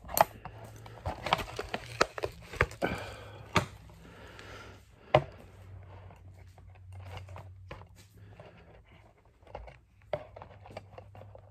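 Hands struggling with plastic toy packaging: scattered sharp clicks, taps and crinkles as a lightsaber part is worked loose, over a faint steady low hum.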